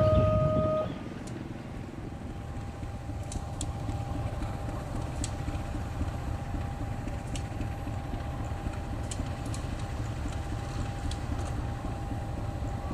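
Diesel-electric locomotive idling: a steady low rumble with a thin, steady whine above it and a few faint clicks.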